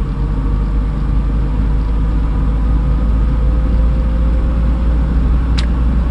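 Steady low engine and road rumble inside a car's cabin, with one sharp click about five and a half seconds in.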